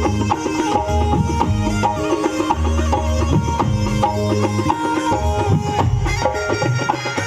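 Loud recorded music with a steady drum beat over a bass line and melody, of the kind played through a sound system during a sound check.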